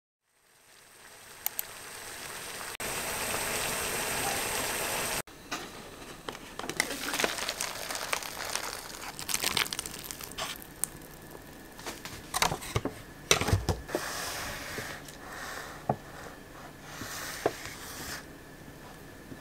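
Instant cup udon being prepared: a steady hiss builds for about five seconds and cuts off sharply. Then come crinkling of the cup's paper lid and packets, hot water poured from a small saucepan into the cup, and scattered clicks and knocks.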